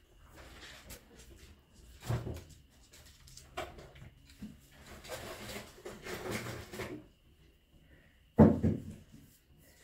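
Rustling and light knocking from a wheeled shopping trolley, its fabric bag and metal frame, as a beagle and a cat push and paw at it. A sharp clatter about eight seconds in is the loudest moment.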